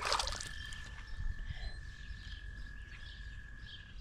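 Water splashing and dripping as a small largemouth bass is let back into the lake, then one steady high trill held for nearly four seconds that stops just before the end, with faint bird chirps above it.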